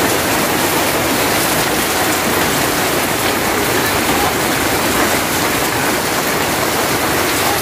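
Heavy rain falling steadily on mud, leaves and roofs: a loud, even hiss of downpour, with water pouring off a roof edge.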